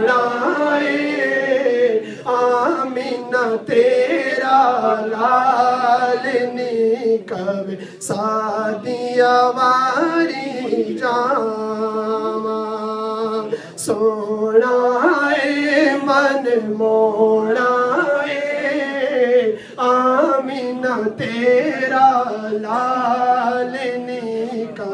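A man singing a Punjabi naat into a microphone, drawing out long held notes that bend and slide in pitch, with short breaths between phrases.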